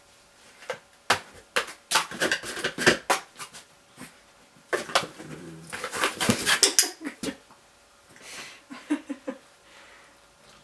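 Cardboard box knocked, tapped and scraped about by a small terrier nosing and pawing at it: a rapid clatter of sharp taps and knocks in two bouts. Near the end come a few brief low dog whimpers.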